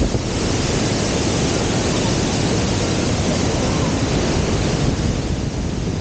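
Fast-flowing river water rushing and splashing right against the microphone: a steady, loud noise.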